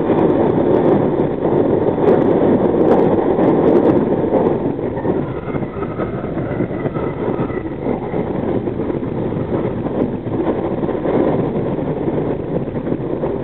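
New York City Subway R62A train running through a tunnel, heard from the front car: a steady rumble of wheels on rail, with a few sharp clicks about two to four seconds in. A faint high squeal sounds from about five to eight seconds in as the train takes a curve, and the rumble is a little quieter from then on.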